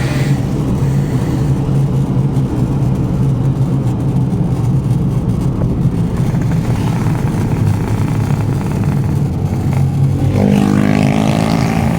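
Vehicle engine running steadily under load on an off-road trail, revving up with a rising pitch about ten seconds in.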